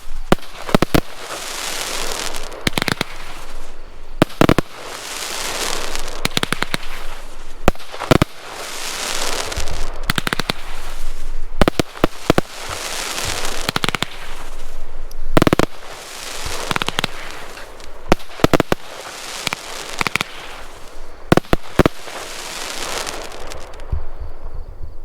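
A 42-shot, 30 mm consumer firework cake (Black Scorpion crackling willow to neon peony) firing: a run of sharp launch and burst reports, each volley followed by a spell of dense crackling from the crackling willow stars. It stops about a second before the end.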